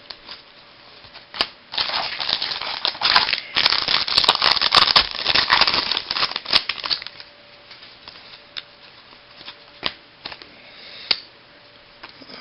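Baseball trading cards and their pack being handled: about five seconds of rustling and crinkling with many small clicks, then scattered light clicks of single cards.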